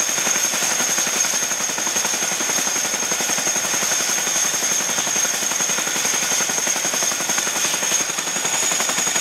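Boeing CH-47 Chinook tandem-rotor helicopter running on the ground with its rotors turning: a fast, steady blade chop under a high turbine whine that rises slightly near the end.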